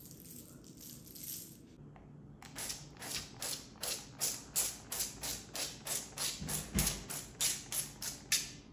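Hand-pumped oil spray bottle misting oil over a tray of cubed potatoes. It gives a quick run of short spray hisses, about three a second, starting a couple of seconds in and stopping near the end.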